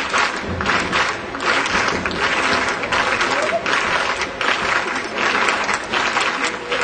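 Large crowd applauding, the clapping swelling and easing in waves.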